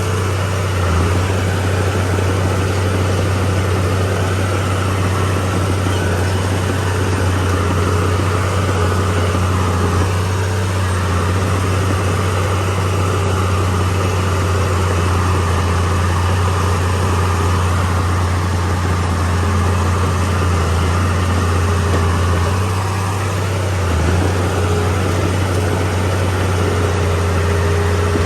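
Komatsu D31P crawler bulldozer's diesel engine running steadily with a low drone, dipping briefly near the end.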